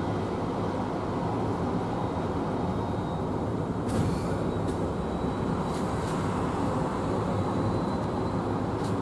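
Boeing 767-300's turbofan engines at taxi idle: a steady rumble with a faint high turbine whine. A few light clicks around the middle and near the end.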